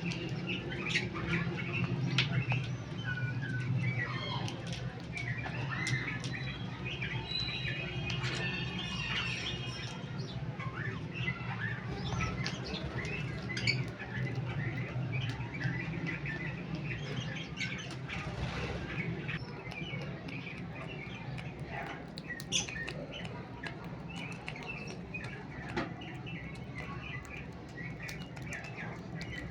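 Cockatiels chirping softly while cracking seeds with their beaks: many short chirps mixed with frequent small clicks, over a steady low hum.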